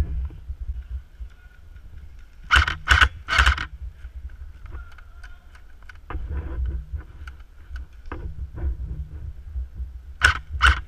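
Airsoft gun firing single shots: three sharp shots about half a second apart a few seconds in, and two more near the end. Between the groups there is a low rumble and handling noise.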